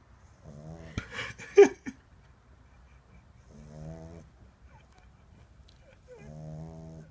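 Boston Terrier puppy snoring in its sleep: three snores, each well under a second long, a little under three seconds apart. About a second in, a short burst of sharper noise is the loudest sound.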